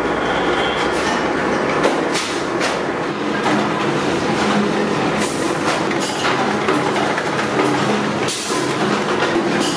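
Motor-driven roller-bending machine running as a steel mudguard strip is fed through its rollers: a steady mechanical rattle with irregular metallic clicks and clanks.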